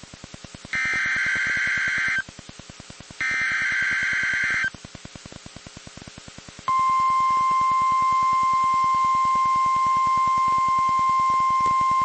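NOAA Weather Radio EAS alert. Two harsh, screeching SAME digital header bursts, each about a second and a half long and separated by a short pause, are followed about six and a half seconds in by the steady 1050 Hz warning alarm tone, which starts abruptly. That tone signals that a warning (here a snow squall warning) is being issued. A faint buzz runs under everything.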